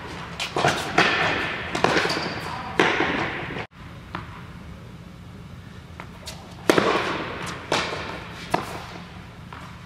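Tennis balls struck by rackets and bouncing on an indoor hard court, each sharp hit followed by a long echo in the hall. Hits come about a second apart in two runs, with a brief dropout in the sound between them.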